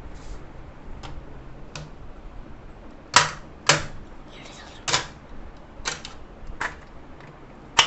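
Plastic push-button pencil box being worked by hand: its compartments snapping open and plastic trays clacking, about seven sharp clicks, the loudest two close together about three seconds in.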